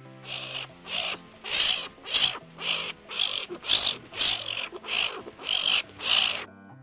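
Skunk making a run of about a dozen short breathy huffs, roughly two a second, over soft background music.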